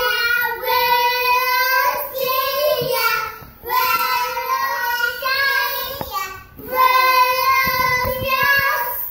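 Young child singing loudly in long, high held notes, in three phrases with short breaks between them.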